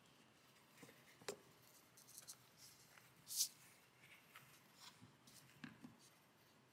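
Faint handling sounds of crocheting: yarn and crochet hook rustling with small scattered clicks. A sharp click comes about a second in, and a short scratchy swish, the loudest sound, comes about three and a half seconds in.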